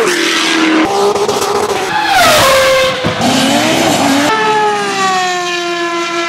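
A quick run of different racing car engines spliced one after another, each cut changing the note abruptly about every second. Around two seconds in, one engine's pitch falls steeply as it slows, then rises again as it accelerates, and a last engine note sinks slowly.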